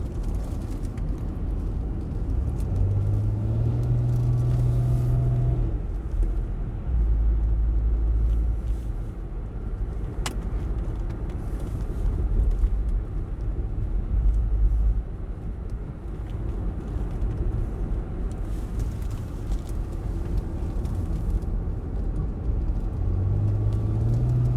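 Car being driven, with a steady low rumble of engine and tyres. About three seconds in and again near the end, the engine note climbs and holds for a few seconds. There is a single brief click about ten seconds in.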